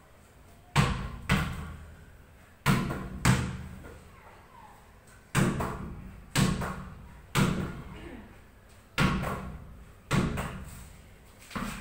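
Netball repeatedly thrown against a concrete block wall and caught: about ten sharp thuds roughly a second apart, some in quick pairs, each ringing out in the bare room.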